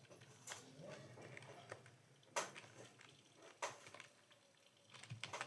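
A few isolated computer keyboard key clicks with long gaps between them, the loudest about halfway through: typing has slowed to a pause.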